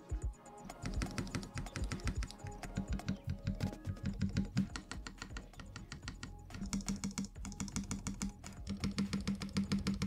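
Large stabilized keycaps (spacebar, shift, enter) on TX stabilizers, lubed with Krytox 205g0 and dielectric grease, being pressed rapidly over and over to test for rattle. The presses come in fast runs of clacks, several a second, with a lull around halfway.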